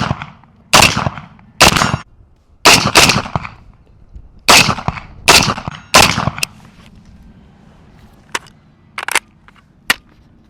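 Unsuppressed 5.56 rifle with a muzzle brake firing a string of very loud, sharp shots, about seven reports with short echoing tails over the first six seconds. Fainter sharp cracks follow near the end.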